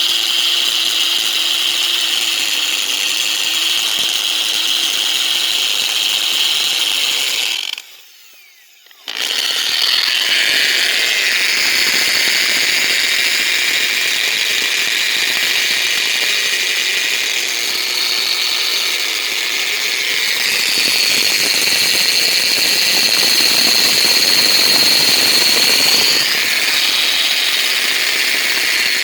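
Electric drill fitted with a masonry bit, running with a steady high whine. It stops for about a second some eight seconds in, then starts again at a slightly higher pitch.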